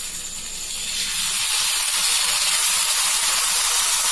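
Dosa batter sizzling on a hot oiled tawa as it is ladled on and spread. The sizzle grows a little louder about a second in and then holds steady.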